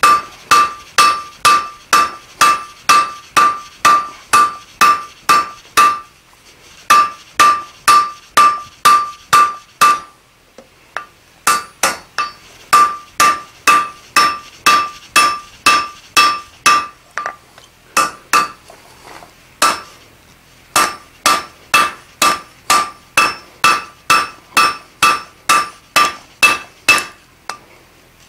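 Hand hammer striking a red-hot steel bar on an anvil, forging it down to flat stock about 3/8 by 1 inch. The blows come at about three a second in runs with a few short breaks, and each blow rings with a clear metallic tone.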